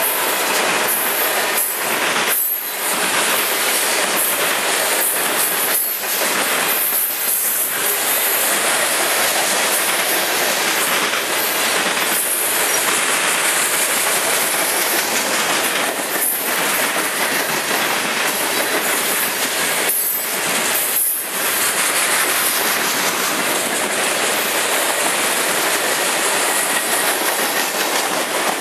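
Freight train cars rolling past close by: loud, continuous wheel-on-rail rumble and clatter of tank cars, covered hoppers and boxcars going over the track.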